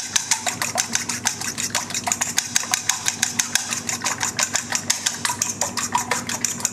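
A fork whisking eggs and milk in a mixing bowl: rapid, even clicking of the fork against the bowl, about five or six strokes a second.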